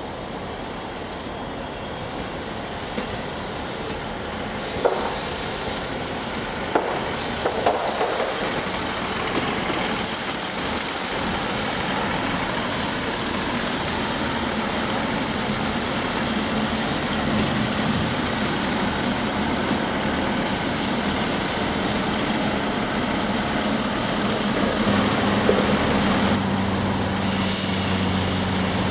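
Class 158 diesel multiple unit moving past on the tracks: diesel engine running under the body, with several sharp clicks of wheels over rail joints between about five and eight seconds in. A steady low engine drone builds through the second half.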